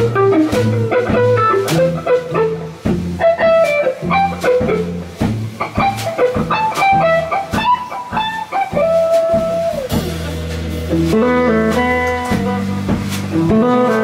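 Two electric guitars and a drum kit playing an instrumental piece live. The guitars play quick melodic runs over the drums, hold a long note about nine seconds in, then move to lower sustained notes and repeated chords.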